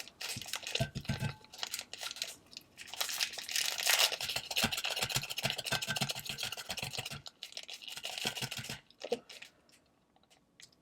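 Plastic food packaging being crinkled and torn open: dense rustling and crackling with sharp clicks, stopping about nine seconds in.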